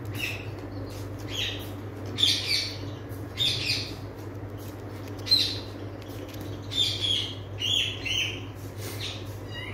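Alexandrine parakeet giving a string of short, high calls, loose clusters of two or three with short gaps between them.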